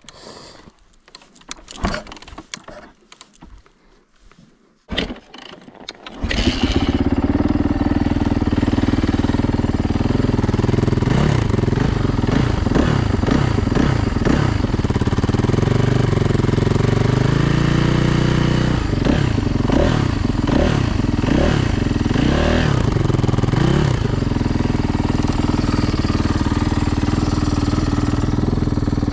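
Freshly rebuilt Yamaha YZ450F four-stroke single-cylinder dirt bike engine being kicked over with a few knocks, then firing about six seconds in and running. It is blipped up and down repeatedly through the middle, then settles back to a steady idle.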